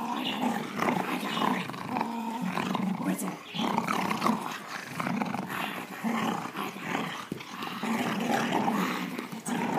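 Boxer–American Bulldog mix growling almost without pause, rising and falling in loudness, as she tugs at her toy. It is play growling during a tug-of-war, not real aggression.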